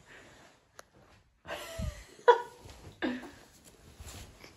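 A small child's brief vocal sounds, two short yelps or giggles, with a soft thump just before them.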